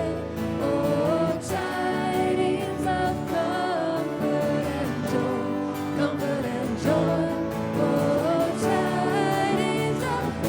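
Worship song with singing over guitar and band accompaniment.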